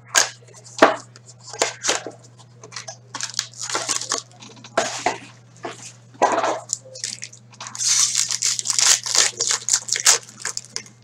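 Shrink-wrap and cardboard of a trading-card box being handled and torn open, then a foil card pack ripped open, with irregular tearing and crinkling noises that are densest near the end.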